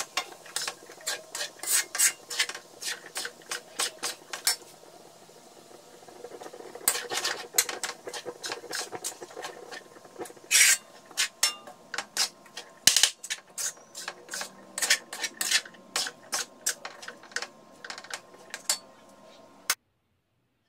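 Metal spoon scraping and clinking against an aluminium wok while stirring diced squash, in quick irregular strokes with a short lull about a quarter of the way in. The sound cuts off just before the end.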